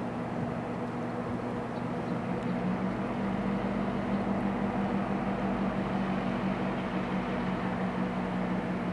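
Diesel locomotive engine running at a steady speed, a constant drone with several held tones that firm up a little a few seconds in.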